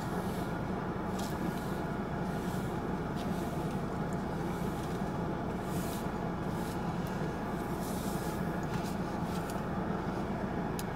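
Steady low hum of a parked car idling, heard from inside the cabin, with a few faint light rustles.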